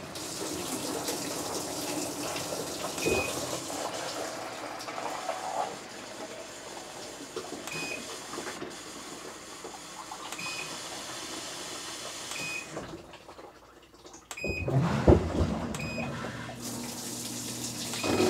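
Whirlpool Cabrio top-load washer running its diagnostic tests: water hissing into the tub, with a short control-panel beep every few seconds as each test step is selected. About 14 seconds in the water stops, and the drain pump starts with a louder hum; it runs again because the faulty drain-pump relay on the control board has been replaced.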